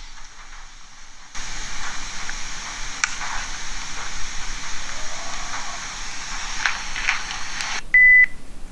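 Sony handheld digital voice recorder playing back a recording through its small built-in speaker: a steady hiss with a few faint clicks, in which the investigator says he caught a moaning or groaning sound. Near the end the playback stops and the recorder gives a short, loud beep as a button is pressed.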